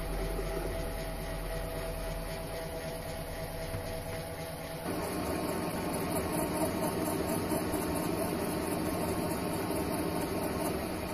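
Mini lathe running, its turning tool cutting a stainless steel rod, a steady hum from the motor and spindle over the scrape of the cut. About five seconds in the sound changes suddenly and becomes louder and fuller as the cutting goes on.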